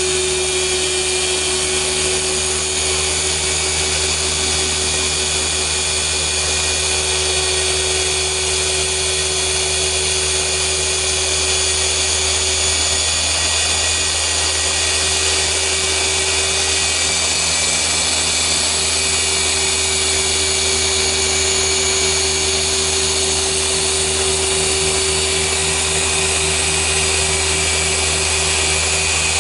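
Rupes 15 random orbital polisher with a yellow foam pad running steadily on car paint during a polishing pass, a constant electric whir with a steady hum.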